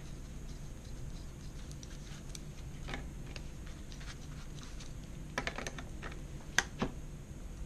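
A handful of sharp metal clicks and light knocks from hand tools and a small two-stroke engine case being handled, mostly in the second half, over a steady low hum.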